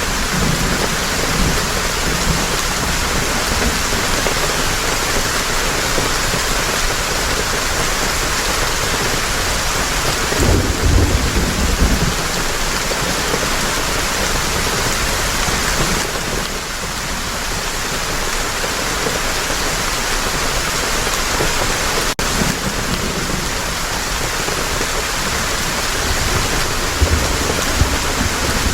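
Heavy rain falling steadily, with low rumbles of thunder about ten seconds in and again near the end.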